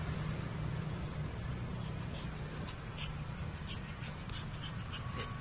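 Light scuffing footsteps on concrete paving blocks, a run of irregular scrapes and clicks starting about two seconds in, over a steady low rumble.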